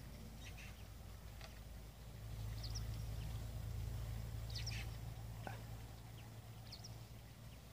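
Birds calling with short, high chirps, one every second or so, over a low, steady rumble that swells in the middle.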